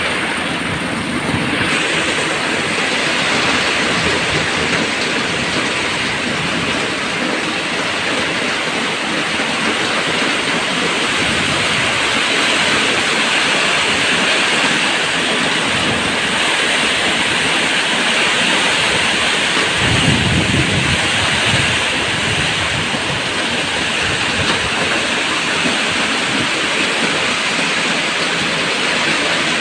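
Heavy rain falling steadily, a dense even hiss, with a brief low rumble about two-thirds of the way through.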